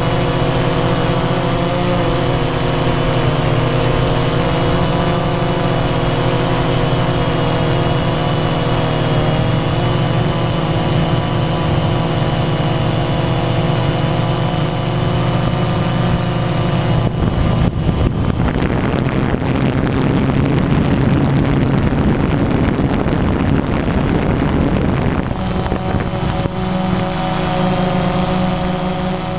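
A drone's motors and propellers whining steadily, heard from the camera on board. Past the middle, the whine breaks up into a rougher rushing noise for several seconds, then settles back into the steady whine.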